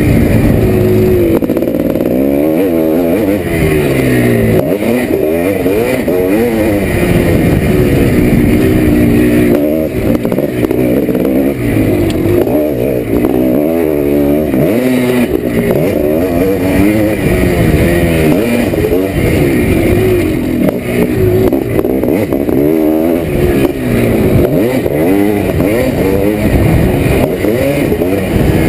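1987 Yamaha YZ490's single-cylinder two-stroke engine under hard riding, its pitch repeatedly climbing and dropping as the throttle is opened and rolled off and the bike shifts gears around the track.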